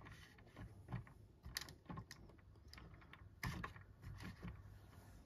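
A handful of faint, irregular clicks and taps of hard plastic as a hand works the missile rack of a vintage G.I. Joe Snowcat toy vehicle on its clips.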